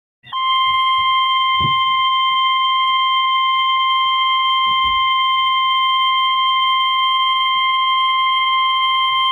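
NOAA Weather Radio warning alarm tone: one loud, steady, piercing single-pitch tone near 1 kHz that starts a fraction of a second in and holds unchanged. It is the attention signal that comes before a broadcast severe-weather warning.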